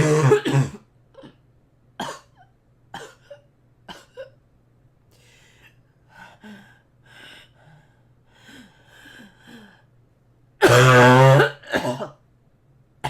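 A girl coughing: one hard cough at the start, a few small coughs and throat noises over the next few seconds, then quieter breaths, then a long, loud cough about eleven seconds in followed by a shorter one.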